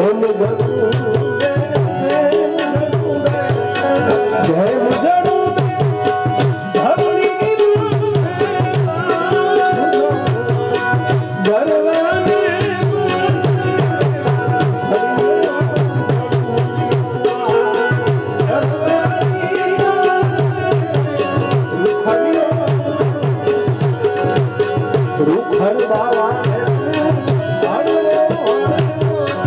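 Live Gujarati devotional folk music (santvani): a man singing over a harmonium, with a steady hand-drum rhythm.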